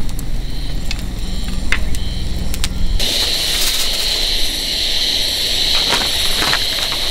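Wood fire crackling in a fire-pit grill, with a low rumble and sharp pops. About three seconds in, the sound changes abruptly to a steady high hiss of cooking on the grill, with occasional crackles.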